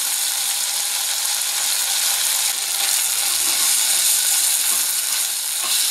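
Diced beef sizzling steadily as it fries in a saucepan. Later on a silicone spatula stirs the meat, with a few faint knocks against the pan.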